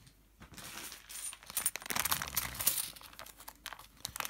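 A bag of gold-coloured 2-złoty coins jingling and clinking together as the clear plastic bag is handled, with a dense run of small metallic clicks.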